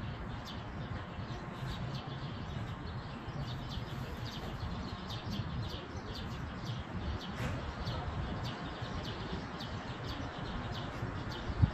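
Small birds chirping over and over above a steady, uneven low rumble, typical of wind on the microphone, with one sharp thump near the end.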